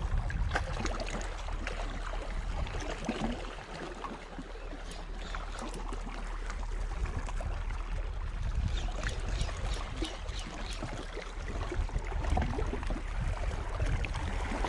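Wind buffeting the action camera's microphone as a steady low rumble, over sea water washing against shoreline rocks, with scattered faint clicks.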